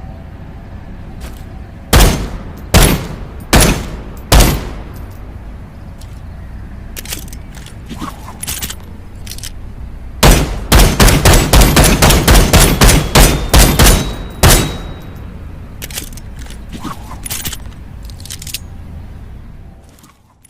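Handgun gunshot sound effects of the .454 Casull and Jackal pistols. Four heavy single shots about a second apart, then a rapid string of about a dozen shots in quick succession, with fainter clicks of handling between the volleys.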